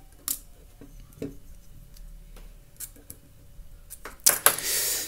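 Small scattered clicks and taps of a flat hand tool against the clock's circuit board and wooden case, with a louder scraping handling noise about four seconds in as the case is moved.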